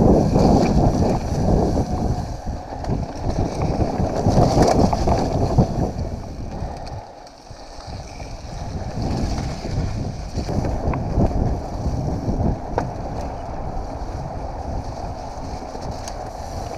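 Wind buffeting the microphone as a mountain bike rolls fast down leaf-covered dirt singletrack, with tyre rumble and frequent knocks and rattles from the bike over bumps. It eases briefly about seven seconds in.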